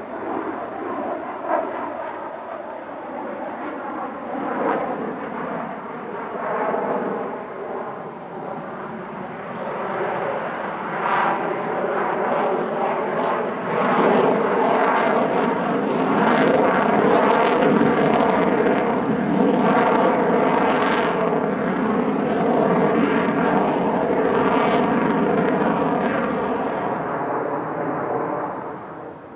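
Jet noise from a Sukhoi Su-35S fighter's twin turbofan engines during a display flight, with a wavering, sweeping tone as the aircraft passes. It builds up over the first half, stays loud through the middle and drops off suddenly near the end.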